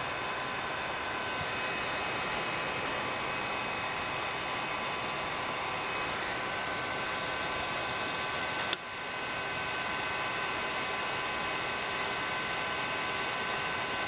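Small cooling fan inside a powered ultrasonic dental scaler running steadily; it is a freshly replaced fan, running smooth and quiet. Faint steady tones sit over its hiss. One sharp click comes a little before nine seconds in.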